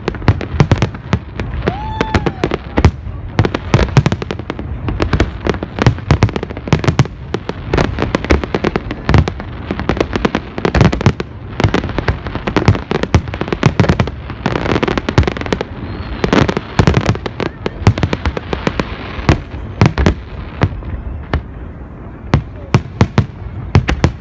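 A big fireworks display going off: a dense, unbroken barrage of bangs and crackles, many shots a second, for the whole stretch.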